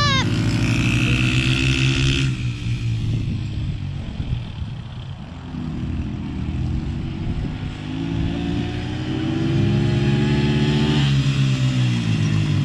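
Pit bike engines racing around a grass track, their note fading as the bikes move away in the middle and then growing louder and rising in pitch as they accelerate back close.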